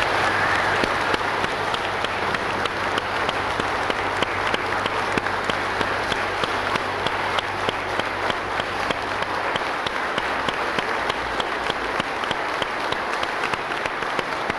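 Congregation applauding, a long, steady round of clapping from many hands.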